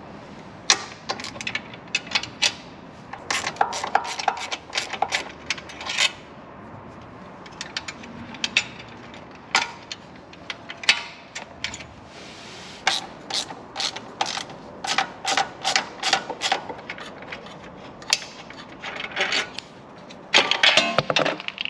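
Ratchet wrench clicking in quick runs, with short pauses between them, as 10 mm bolts on a sway bar bushing bracket are loosened.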